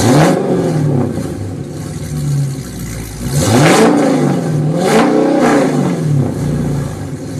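Car engine being free-revved through a custom-built exhaust: several quick blips where the pitch climbs and falls back, settling to a steady idle between them.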